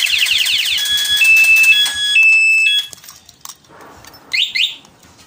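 Aftermarket one-way motorcycle alarm siren wailing with a fast up-and-down sweep, then switching to a run of steady beeps at changing pitches before cutting off about three seconds in. Near the end, two short rising chirps sound.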